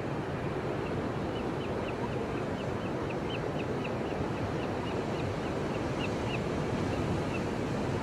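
Ocean surf breaking and washing up the beach in a steady rush. Over it, a bird gives a run of short high chirps, about three a second, from about a second in until near the end.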